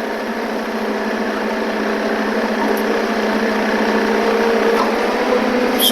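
Forklift engine running steadily, a constant hum that grows slightly louder over the few seconds.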